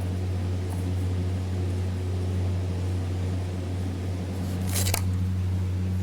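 Steady low hum, with one brief noise about five seconds in.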